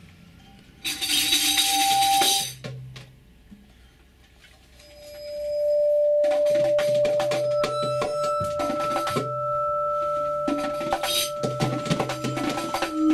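Free improvised percussion music. A short shake of tambourine-like jingles comes about a second in. Then a long steady vibraphone tone, drawn with a bow, swells in around five seconds and is later joined by a higher held tone, over dense jingling and rattling hand percussion.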